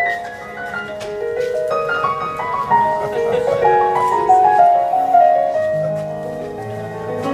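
Electronic keyboard played with a piano sound: a flowing melody of single notes, with low bass notes joining about halfway through.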